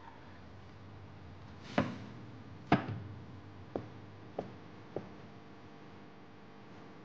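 Hard-soled shoes stepping on a wooden floor: five sharp knocks less than a second apart, the later ones quieter.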